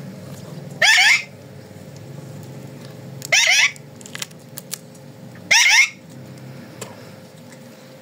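Alexandrine parakeet screeching: three short, loud calls about two seconds apart, each a quick rattle of rising notes.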